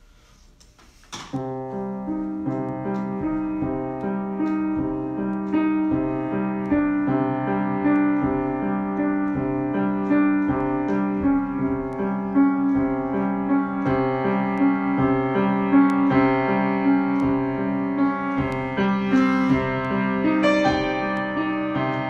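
Solo grand piano improvisation, starting about a second in and then running on in an even, rhythmic pattern of repeated chords.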